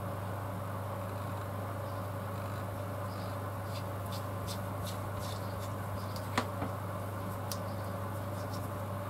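Faint small clicks and ticks of small drone parts being handled and fitted by hand, with one sharper click about six seconds in, over a steady low electrical hum.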